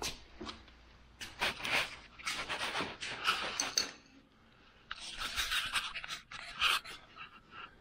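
A man breathing hard close to the microphone, in a few long, noisy breaths of a second or two each, with some rustling.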